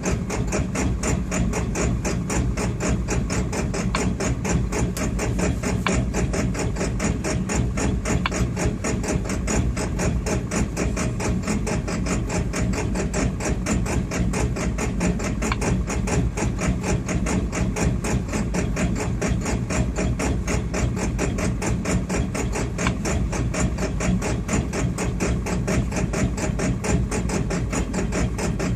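Engine idling roughly, with a fast, even clatter of knocks over a steady low running hum.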